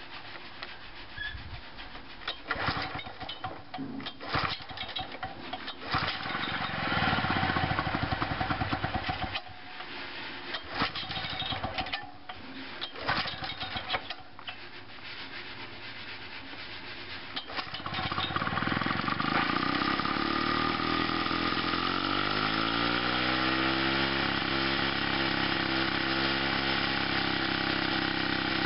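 Victa 125cc two-stroke lawn mower engine being pull-started cold after long disuse: several pulls on the recoil starter, then it catches about eighteen seconds in and keeps running, its speed wavering before it steadies.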